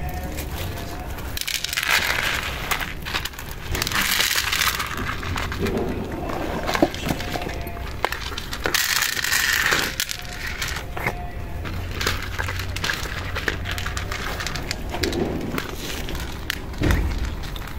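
Dry cat kibble rattling as it is poured from a crinkling plastic bag onto plastic plates, in several noisy spells with scattered clicks of pellets. Near the end, cats crunching the kibble as they eat.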